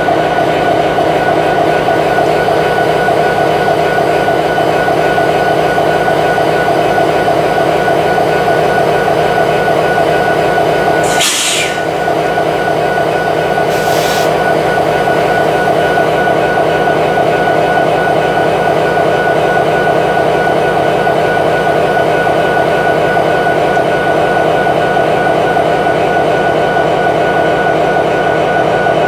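EMD 16-710 diesel prime mover of a locomotive running steadily, with a constant hum and whine. Two short hisses cut in briefly, about 11 and 14 seconds in.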